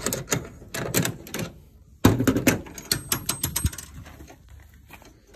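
The chrome locking latch on the rear storage boot of a 1968 Silver Streak Sabre aluminium trailer being worked open: a quick run of metallic clicks and rattles, with one sharp clack about two seconds in, thinning out after about four seconds.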